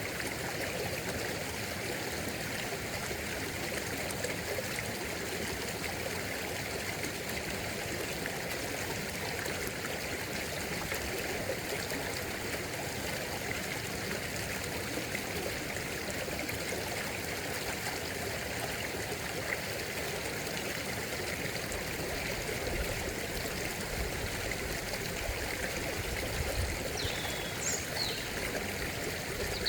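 A stream flowing steadily, an even rush of running water.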